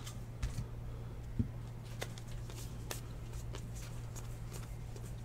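Stack of baseball trading cards being thumbed through by hand, with faint, scattered soft clicks as cards slide off one another, over a steady low hum.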